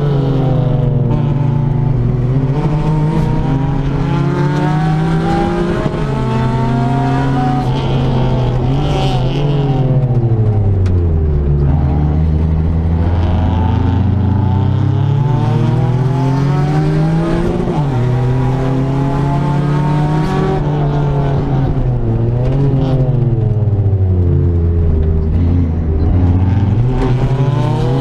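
Turbocharged three-cylinder engine of a Daihatsu Mira L500 race car, heard from inside the cabin, revving up through the gears and falling back off the throttle into corners, over and over. The revs drop lowest and stay down for a few seconds near the middle before climbing again.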